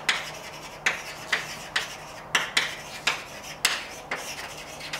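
Chalk writing on a blackboard: a run of short scrapes and taps, about two a second, as a line of words is chalked out.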